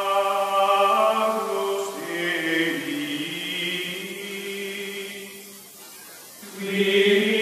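Outro music of chant-like choir voices holding long, sustained notes. It fades down about five seconds in and swells back up near the end.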